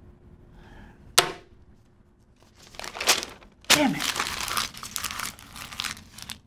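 A sharp knock about a second in, then a sheet of paper torn and crumpled by hand in a run of loud rips and rustles.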